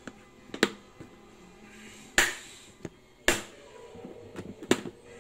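Plastic food container's clip-lock lid latches being snapped shut one after another: four sharp plastic snaps about a second apart, with lighter handling clicks between them.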